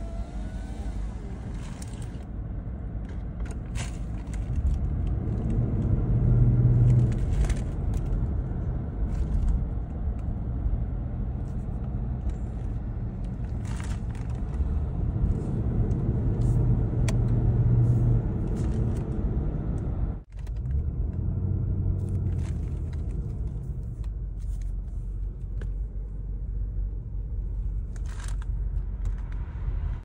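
Toyota Land Cruiser driving at about 40 km/h, heard from inside the cabin: a steady low road and drivetrain rumble that swells twice, with scattered light clicks and one very short dropout about two-thirds of the way through.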